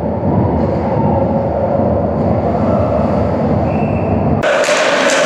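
Ice hockey arena crowd noise, heard as a muffled, steady rumble through the goal camera's microphone. About four seconds in it switches abruptly to clearer crowd chanting and cheering.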